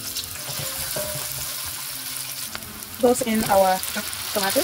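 Chopped onions sizzling in hot oil in a frying pan, a steady crackling hiss.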